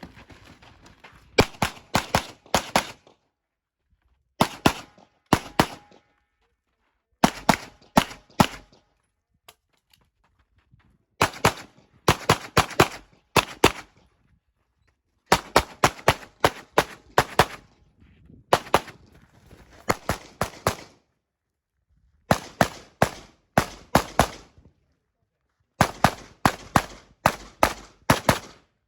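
Handgun fired in rapid strings of several shots, the strings separated by pauses of a second or two, as a competitor shoots a timed USPSA stage course of fire.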